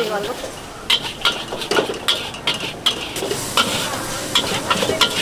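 Metal spatula clanking and scraping against a wok as yellow mee goreng noodles are stir-fried over high heat, with a steady sizzle underneath. The clanks come about every half second.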